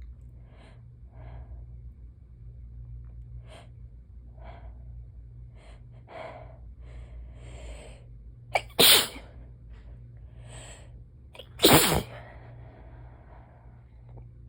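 A person sneezing twice, loudly, about nine and about twelve seconds in, after several seconds of soft, short breaths building up to the first sneeze.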